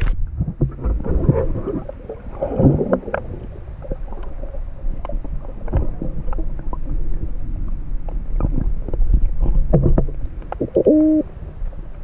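Muffled underwater sound picked up by an action camera in its waterproof housing: a low rumble of moving water with scattered clicks and knocks, and a brief muffled tone near the end.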